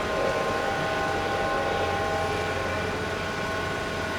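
Heavy construction machinery running steadily: a low engine rumble with a steady whine on top.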